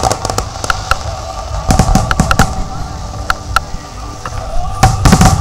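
Fireworks display: aerial shells bursting in a string of sharp cracks and bangs over a continuous crackle, with dense volleys at the start and again near the end.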